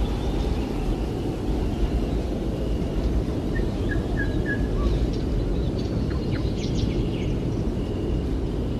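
Faint, scattered bird chirps and short whistles over a steady low outdoor rumble, with a small cluster of chirps in the middle.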